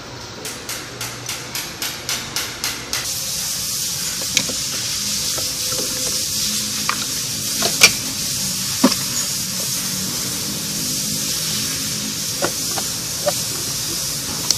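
A steady hissing noise, led in by a quick run of short puffs that grow louder over the first few seconds, with a few sharp clicks scattered through it.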